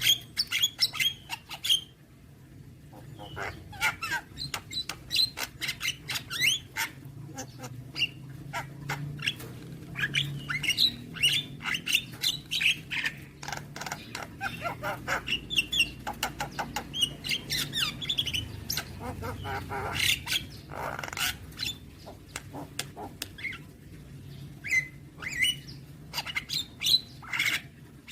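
Javan myna (jalak kebo) singing a long, varied song of fast chattering clicks, chirps and whistles, with a short pause about two seconds in.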